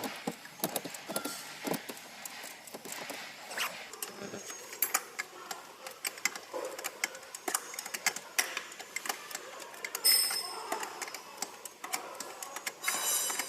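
Hand tools working on steering column bolts: irregular metallic clicks and clinks, with quick runs of ratchet-wrench clicking about ten seconds in and near the end as the bolts are tightened.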